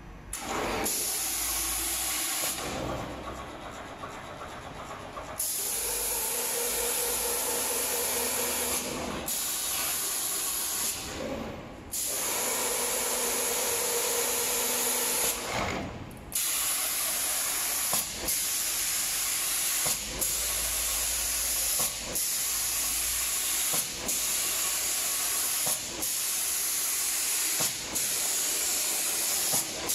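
Automatic paint spray gun on a door-spraying machine hissing as compressed air atomizes the paint, switching on and off. The first half has long spray runs of several seconds. In the second half the hiss cuts out briefly about every two seconds in an even rhythm.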